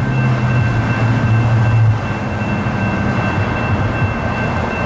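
A GS Type 2 electronic grade-crossing bell rings steadily while the crossing is active. Road traffic passes underneath it, with a low engine hum heaviest in the first two seconds and a car going by near the end.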